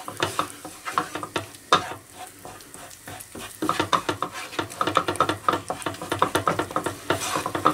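Wooden spatula scraping and pressing tomato paste and spices across a frying pan, with the ghee sizzling under them. The scrapes are irregular and come thicker from about halfway through.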